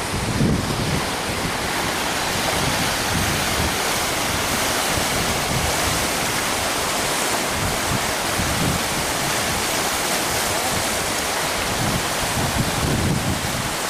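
Sea surf breaking on a rocky shore in a steady wash, with wind buffeting the microphone in irregular low gusts.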